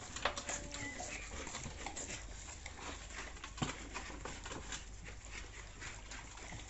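Pit bull puppy eating watery liver pasta from a large steel pot: a run of quick, irregular wet lapping and chewing clicks, with a sharper knock about halfway through.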